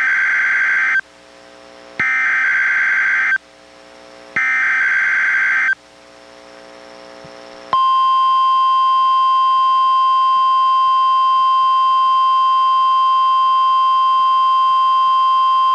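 NOAA Weather Radio alert signals from a Reecom R-1630 weather radio during a Required Weekly Test. First come the tail of one SAME digital header burst and two more data bursts, each about a second and a half long. Then, about eight seconds in, the steady 1050 Hz warning alarm tone begins and holds.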